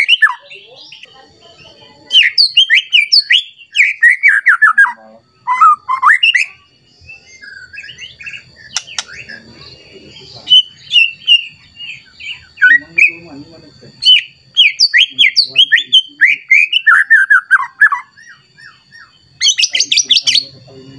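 White-rumped shama (murai batu) singing in bursts of fast, varied phrases of rising and falling whistles and chattering notes, with short pauses between them. It is the agitated, rival-seeking song of a bird in full voice. A faint steady high tone runs underneath through the middle.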